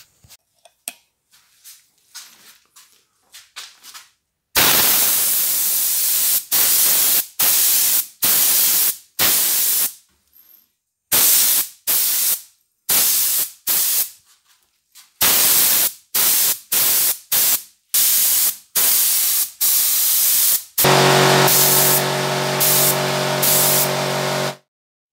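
Gravity-feed paint spray gun hissing in many short bursts as the trigger is pulled and released, each lasting about a second. Near the end comes one longer burst of about four seconds, with a steady low hum under it. A few light clicks of handling come before the spraying starts.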